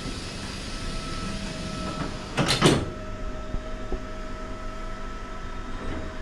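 Steady background hum with a faint high whining tone, and one brief rustle-and-knock about two and a half seconds in.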